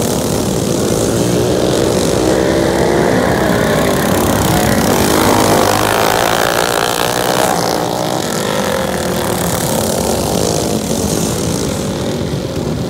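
Several racing kart engines running at speed on a dirt oval, their overlapping pitches rising and falling as the karts pass. It is loudest about halfway through, as three karts go by close.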